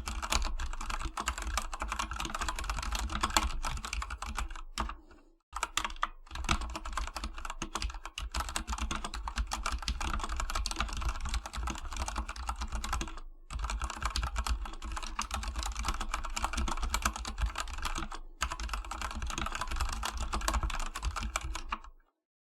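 Fast, continuous typing on the AKKO 3108 V2 World Tour Tokyo mechanical keyboard with AKKO custom switches, a dense stream of key clacks. It breaks briefly about five, thirteen and eighteen seconds in, and stops just before the end.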